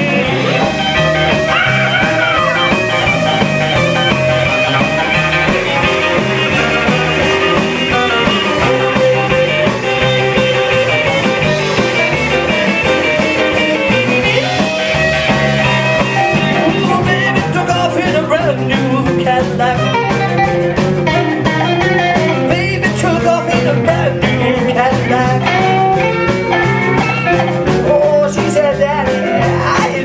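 Live rock-and-roll band playing loud: two electric guitars, an electric bass and a drum kit, with cymbals busier in the second half.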